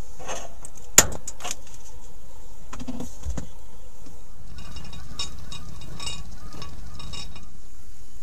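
Cookware being handled while preparing to cook rice: a few sharp clicks and knocks, then a run of light metallic rattling from about halfway to near the end, over a steady low hum.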